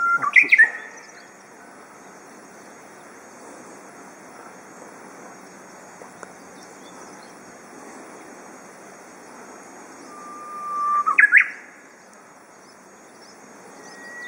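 Japanese bush warbler singing its 'hoo-hokekyo' song twice over a steady background hiss: each song is a long whistled note ending in a quick rising-and-falling flourish. The first ends just after the start and the second comes about ten seconds in.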